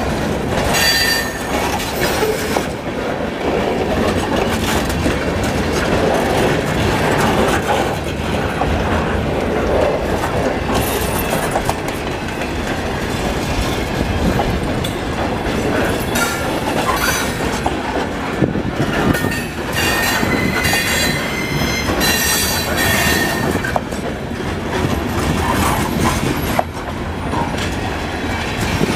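Freight cars of a mixed freight train rolling past close by, wheels clattering steadily over the rail, with brief high-pitched wheel squeals now and then.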